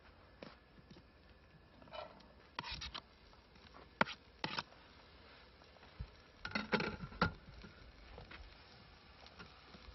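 Kitchen knife cutting mushrooms on a plastic cutting board, then scraping them off the board into a frying pan: scattered soft knocks and clicks. The sharpest come about four seconds in and around seven seconds in.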